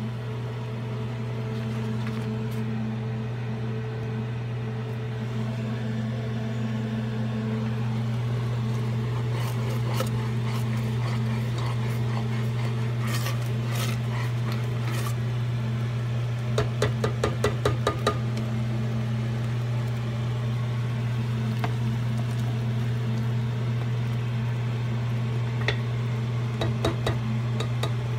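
Steady low electrical hum from a kitchen appliance at the stove, with a utensil clinking against a cooking pot: scattered taps, a quick run of about eight taps a little past halfway, and a few more near the end.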